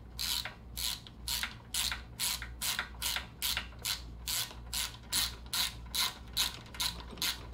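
Hand ratchet wrench being worked back and forth, a short burst of clicking on each stroke, about two to three strokes a second in a steady rhythm.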